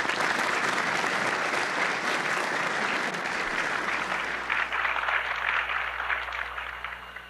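Audience applauding: many hands clapping in a dense patter that thins out and dies away near the end, leaving a low steady hum.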